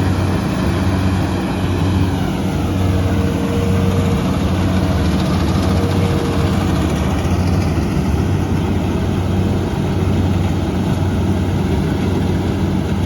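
Rice combine harvester running steadily, its diesel engine giving a continuous low drone.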